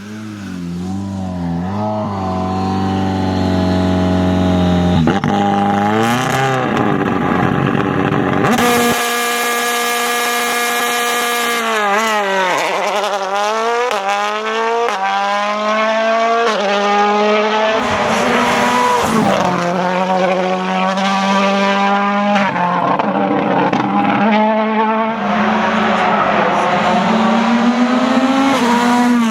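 Toyota Yaris WRC rally car's turbocharged 1.6-litre four-cylinder engine driven hard on a stage, its pitch climbing and dropping again and again through gear changes and braking. It grows louder over the first couple of seconds as the car comes close.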